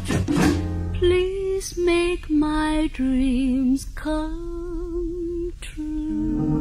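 A 1961 Mandarin pop recording: a woman sings a slow phrase in long held notes with vibrato over light guitar backing, and the fuller band comes back in near the end.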